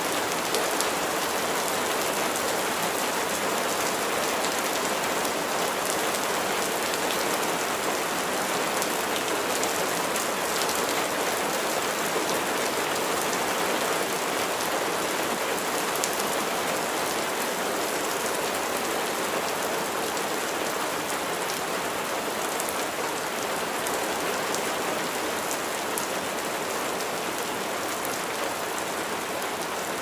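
Steady rain falling, an even hiss with scattered individual drop hits.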